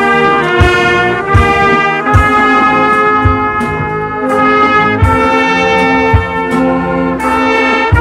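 Trumpet playing held notes close to the microphone, moving to a new note every second or so, with a deep drum thump about once a second underneath.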